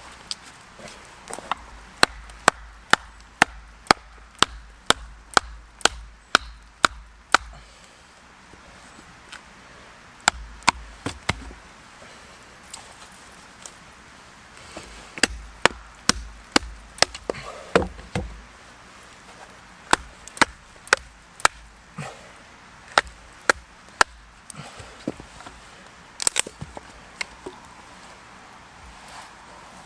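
Chopping strikes into a piece of willow as a carving blank is roughed out. The strikes are sharp and come in runs of about two to three a second, with short pauses between the runs.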